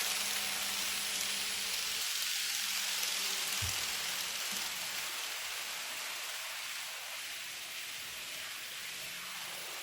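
N gauge model train running along the layout track, its wheels and motor making a steady hissing rush that slowly grows fainter. There is a brief low thump about three and a half seconds in.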